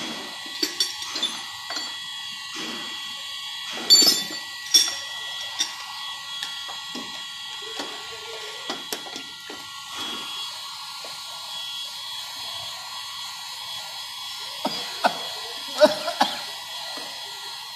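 Electric heat gun blowing steadily with a whine, heating a car bumper to work a dent out without repainting. Several sharp knocks and clicks break in, the loudest about four seconds in and again near the end.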